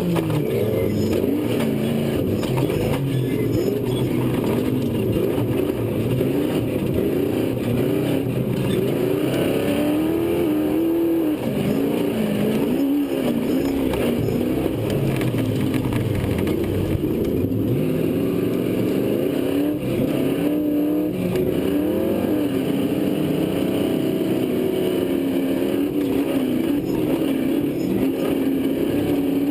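Off-road race truck's engine heard on board at race pace, its pitch rising and falling again and again as the throttle is worked.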